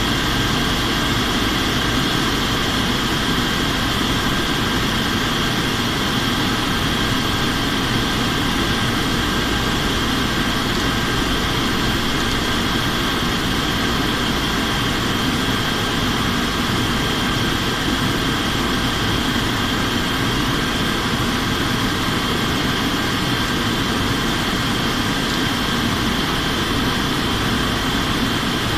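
Steady drone of an airliner's engines and rushing airflow heard from inside the aircraft during descent, with a thin steady high whine running through it.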